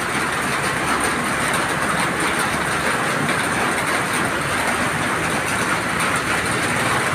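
Muddy floodwater rushing down a street, a steady, even rush of water.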